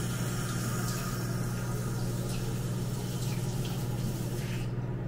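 Running water over a steady low hum; the water stops near the end.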